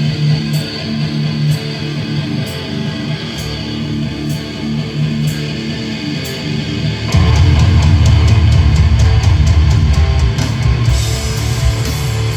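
Live heavy metal band: a guitar plays alone with a light tick about once a second, then about seven seconds in the full band crashes in loud, with fast drumming and heavy guitars.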